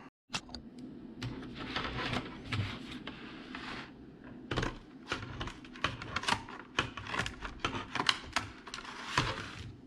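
Cardboard and plastic pocket-knife packaging being opened by hand: irregular crackling and sharp clicks.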